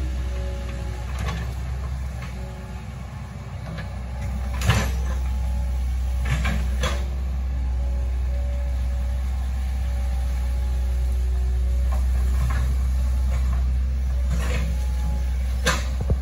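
Hitachi ZAXIS 110 excavator's diesel engine running steadily with a deep rumble. Several sharp knocks sound over it, the loudest about five seconds in and another near the end.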